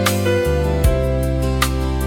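Calm instrumental background music: soft plucked and keyboard-like notes over sustained bass tones.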